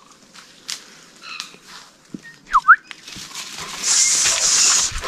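A person gives a short, loud two-note whistle, the first note falling and the second rising, as a call to a hunting dog. About a second later comes just over a second of loud, hissy rustling, with footsteps in leaf litter.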